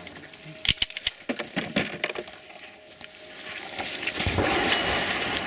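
A quick run of sharp clicks and clinks in the first two seconds, then a rising rustle of movement.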